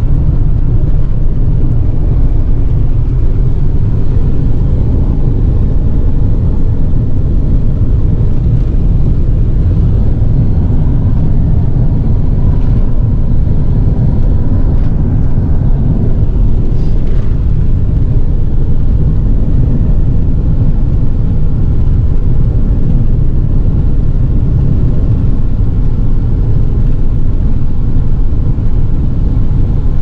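Car driving along: a steady, loud rumble of road and wind noise heard from inside the car.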